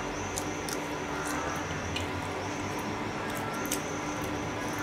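A pancake cooking on a hot griddle, with a steady sizzling hiss, scattered light clicks and a faint steady hum underneath.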